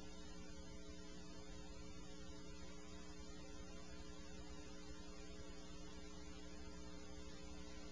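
Steady electrical hum with several fixed tones over an even background hiss, unchanging throughout.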